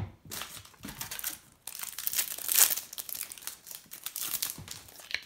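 A trading-card packet's plastic wrapper being torn open and crinkled by hand, in irregular rustling bursts, loudest about halfway through.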